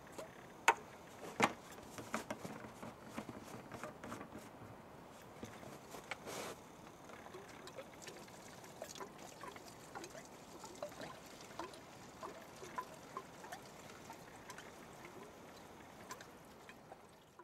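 Petrol being poured from a red petrol can into a makeshift temporary fuel tank, a faint trickle and slosh of fuel. Scattered clicks and knocks of the can and filler come with it, the sharpest a couple of clicks about a second in.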